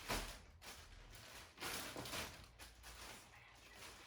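Faint, irregular rustling of clothing packaging being handled and opened.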